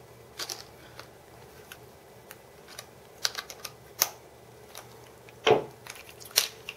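Scattered small clicks and taps as a plastic handheld camcorder is turned and tightened down on a homemade bolt-and-nut camera mount, with a louder knock about five and a half seconds in.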